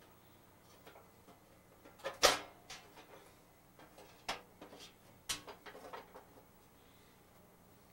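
Sharp metallic clicks and knocks as parts of a Coleman propane stove are handled on its sheet-metal base, a few scattered ones with the loudest a couple of seconds in.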